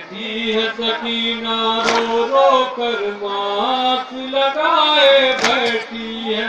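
Devotional chanting in long held notes that step up and down in pitch, with a sharp hit about two seconds in and another near five and a half seconds.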